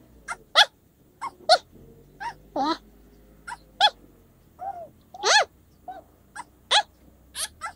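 A cat mewing over and over, about two short high calls a second, each rising and then falling in pitch.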